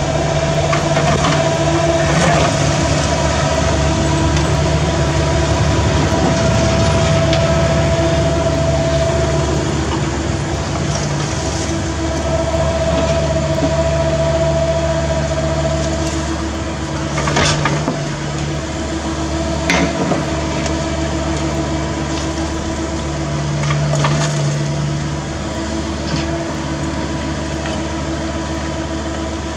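CAT 305E2 mini excavator's diesel engine running steadily under working load as the boom and bucket dig rubble, with a hydraulic whine that comes and goes. A couple of sharp knocks from the bucket striking debris come a little past halfway.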